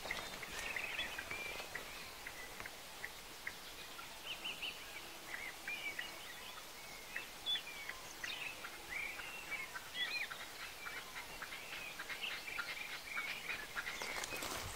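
Small songbirds chirping and twittering, many short calls from several birds, faint. Near the end, footsteps crunch on dry leaf litter.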